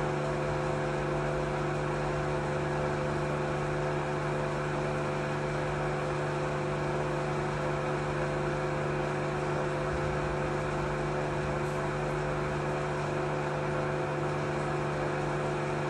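Vacuum pump running steadily with an even hum, evacuating the mixer vessel in the slow final stage of pulling down toward about 0.095 vacuum.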